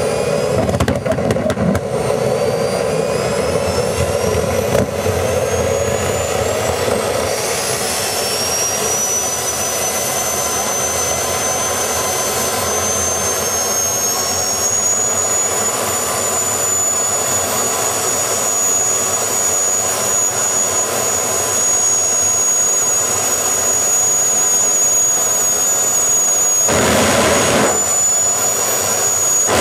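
Homemade propane-fuelled jet engine built from a turbocharger, running loud and steady with a jet rush and a high turbine whine. The whine climbs in pitch for several seconds and then holds. There is a brief louder surge near the end.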